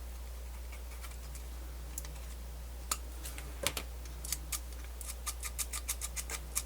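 Small sharp clicks and ticks from a Sony MZ-N420D MiniDisc Walkman's open mechanism being worked by hand while searching for a scratchy spot. The clicks start about three seconds in, a few at first, then several a second near the end, over a low steady hum.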